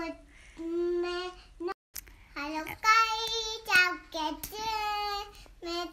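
A young girl singing a children's poem in a high voice, holding long drawn-out notes over several phrases, with a brief cut-out about two seconds in.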